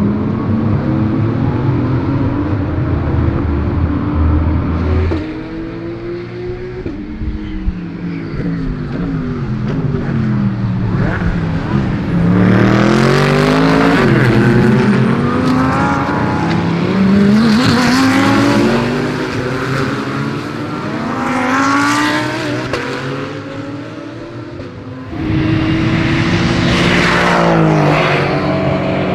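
GT3 race car engines passing at speed, one car after another. The pitch climbs in steps through the gears as each car approaches, peaks loudest as it goes by, and drops away. Several cars pass, the loudest about 13, 18, 22 and 27 seconds in.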